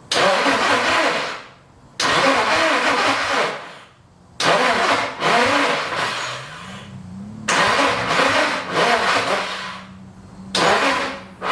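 Nissan SR20 engine being cranked over by its starter in five separate bursts of one to two and a half seconds each, without catching: a failed first start.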